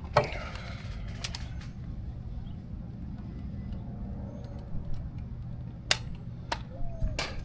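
A few sharp metallic clicks and knocks of a socket and hand tools being fitted and handled, spread out, with a brief rustle near the start. A steady low hum runs underneath.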